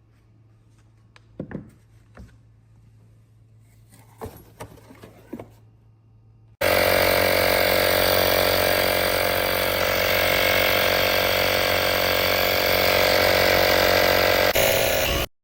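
A few light handling clicks, then a portable jump starter's built-in air compressor switches on abruptly, runs loud and steady for about nine seconds, and cuts off.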